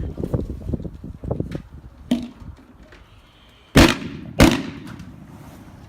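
Two sharp firecracker bangs about half a second apart, each with a short fading tail. Lighter rustling and handling noise comes before them.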